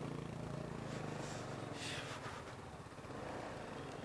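Faint, steady low hum of a motor vehicle's engine, with a couple of soft hissing swishes about two seconds in.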